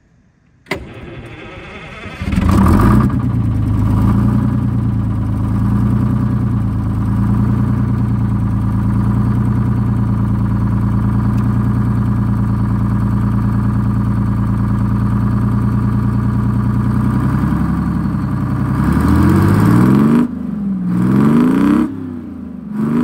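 Detroit Diesel 6-71 two-stroke diesel started up, heard at the bus's exhaust outlet: a click and about a second and a half of cranking, then it catches and idles steadily. Near the end it is revved up, drops back, and is blipped twice more.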